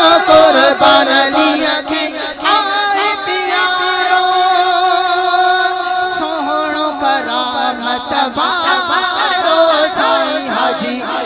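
A man singing a Sindhi devotional manqabat, with long, wavering melodic phrases that carry on without a break.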